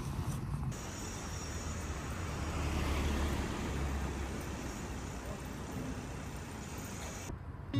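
City street traffic noise, steady, with a vehicle going by and the noise swelling about three seconds in.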